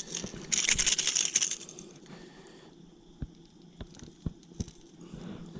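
Handling noise as a small bass is unhooked by hand: a couple of seconds of rustling and scuffing, then a few sharp light clicks and knocks.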